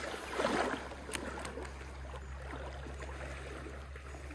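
Shallow stream water gurgling and lapping, busier in the first second, with a single light click about a second in.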